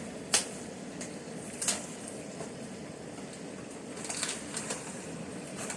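Kitchen sounds: a steady fan-like hum with about five sharp clicks and knocks of small hard objects, the loudest about a third of a second in and a quick cluster of three near the end.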